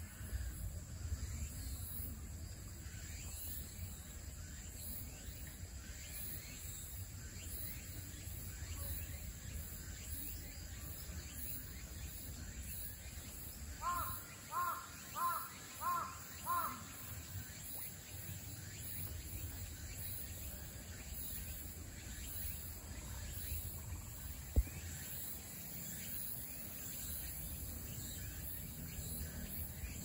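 Outdoor ambience with a steady low rumble. About halfway through, a crow caws five times in quick succession, and later there is a single sharp click.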